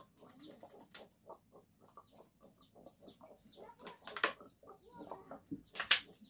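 Rapid gulping and swallowing as water is drunk straight from plastic bottles, with the thin plastic crackling sharply a few times as a bottle collapses. A small bird chirps over and over in the background.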